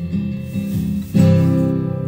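Instrumental music led by acoustic guitar playing chords, with no singing; a louder strummed chord comes in just after a second in.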